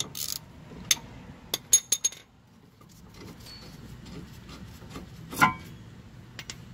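A socket ratchet clicking briefly on a brake caliper bracket bolt, then a few sharp metal clicks and clinks from the wrench and bolts, with one louder click a little over five seconds in.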